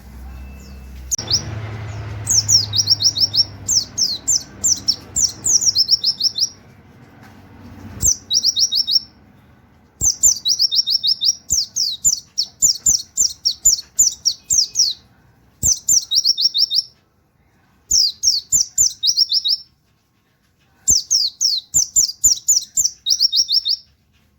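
A pleci (white-eye) singing in fast bursts of sharp, high 'wit wit' notes, each note sliding down in pitch, in canary-like phrases of about a second or two with short pauses between. Faint clicks come between phrases, and there is a low background rumble in the first few seconds.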